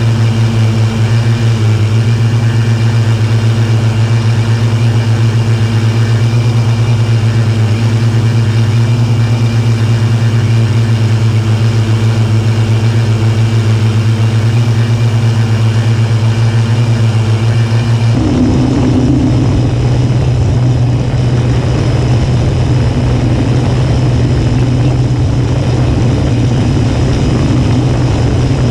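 Homebuilt quadcopter's electric motors and propellers buzzing steadily, picked up by the camera on board. About two-thirds of the way through, the even hum gives way to a rougher, noisier sound.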